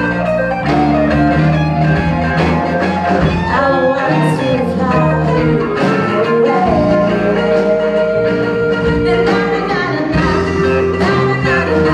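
Live rock band playing: a woman singing lead over two electric guitars, a bass guitar and a drum kit.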